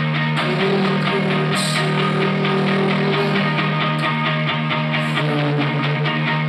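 Rock band playing live: electric guitar, bass and drums at a steady beat, heard from out in the room.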